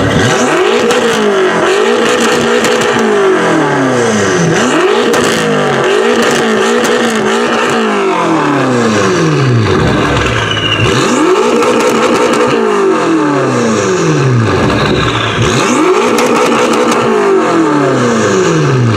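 A car engine being revved hard again and again, its pitch climbing and dropping back in repeated sweeps.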